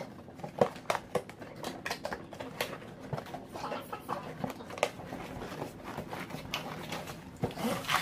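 Cardboard packaging handled: a box slid out of its printed sleeve and opened, with scraping, rustling and scattered light taps and knocks.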